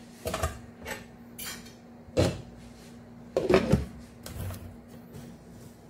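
Kitchen clatter of a cooking pot and utensils: a series of separate knocks and clinks. The loudest cluster comes about three and a half seconds in, as a glass lid is set onto the pot of noodles. A faint steady hum runs underneath.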